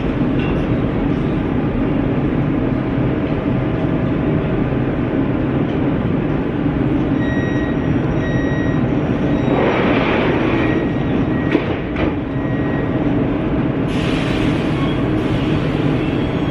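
Metro train standing at an underground platform, its equipment running with a steady rumble. Short, repeated beeps sound through the middle, which fits the door-closing warning, and a hiss starts near the end as the doors shut.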